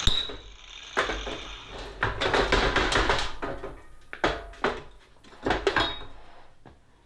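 Irregular knocks, clatters and scrapes of tools and metal parts being handled on a workbench, with a sharp clack at the very start; the clattering dies away about six seconds in.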